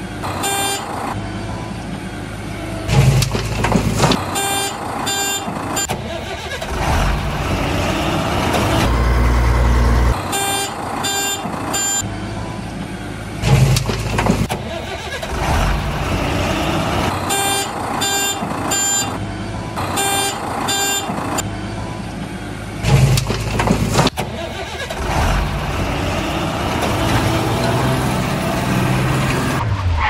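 A heavy truck engine running with a low rumble that surges now and then, and a rapid pulsed beeping that comes in short bursts about five times.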